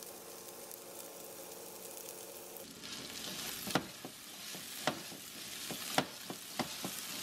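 Ground-beef meatballs sizzling as they sear in a stainless steel frying pan. From about three seconds in, a few sharp metallic clicks and knocks come as the meatballs are turned with tongs and the pan is shaken on the glass stovetop.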